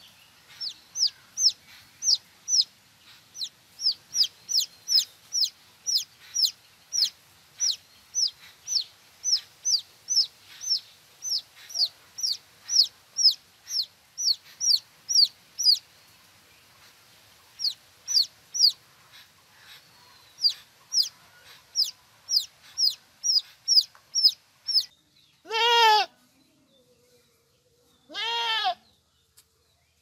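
A chicken chick peeping over and over, short high peeps that fall in pitch, about two a second, with a couple of brief breaks. Near the end the peeping stops and a goat bleats twice.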